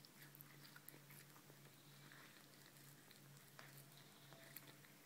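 Faint, irregular crunching and clicking of a cat chewing and gnawing meat off a barbecued chop bone, over a low steady hum.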